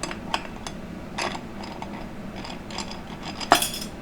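Metal transmission parts clinking and clicking as the rear planetary gearset goes into a 4L60E, then a louder metallic clang with a short ring about three and a half seconds in, as a small part falls.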